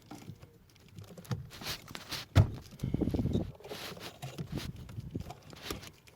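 Handling noise of a wiring loom and plastic connectors being worked onto the accelerator-pedal plug under a dashboard: irregular rustling, scraping and small knocks, with one sharp knock about two and a half seconds in.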